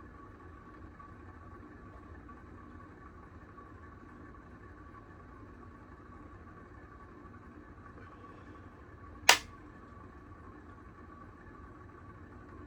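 A Herritage Alexis 52-inch hugger ceiling fan running steadily on high: a low hum with a thin steady whine from its worn, noisy bearings. One sharp click about nine seconds in.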